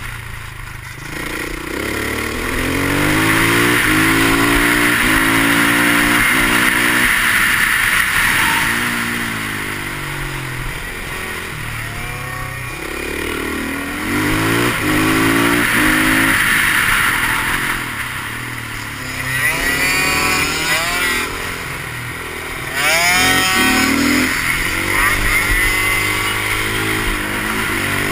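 Husqvarna 510 SMR supermoto's single-cylinder four-stroke engine heard from on board, revving up through the gears and easing off into corners again and again, its pitch rising and dropping back.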